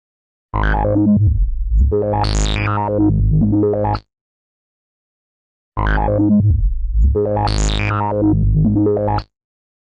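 Electronic synthesizer music: the same short phrase, with sweeping tones that rise high and fall back over a steady low bass, plays twice, each time about three and a half seconds long, with a dead gap between.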